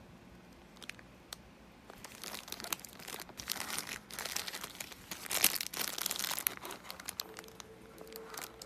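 Packaging crinkling and rustling as it is handled, in irregular crackly bursts starting about two seconds in, loudest near the middle.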